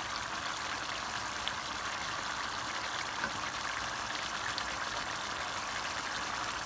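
Meat and kohlrabi stew simmering in a pan, a steady bubbling sizzle, with a few faint ticks of a spatula.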